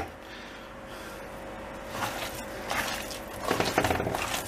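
A bare hand squishing and kneading chopped onion with spices and pepper paste against a metal tray: soft, wet, irregular squelching, faint at first and busier from about two seconds in.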